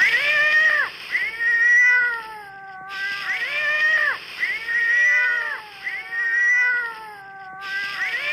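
Domestic cat yowling: a string of long, drawn-out moaning calls, each sliding up at the start and falling away at the end, repeated over and over with short breaks between.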